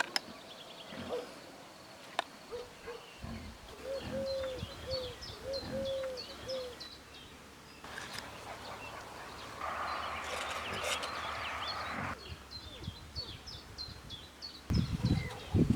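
Birds chirping throughout, with a lower call repeated about eight times in the first half. A burst of rustling-type noise comes about two-thirds of the way through, and dull knocks come near the end.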